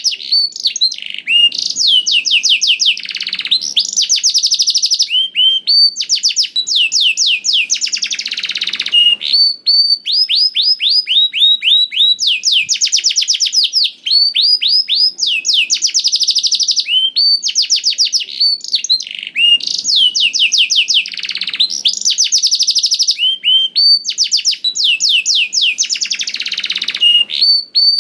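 Domestic canary singing nonstop: long rapid trills of quick, repeated down-slurred notes, switching from one trill to the next every second or two.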